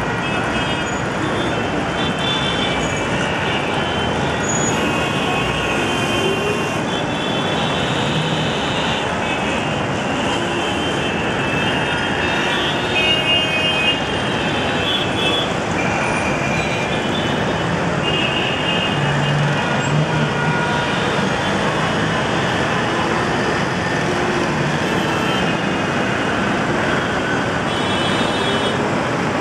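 Dense city junction traffic: a steady din of auto-rickshaws, buses, trucks and cars running, with short horn honks again and again throughout.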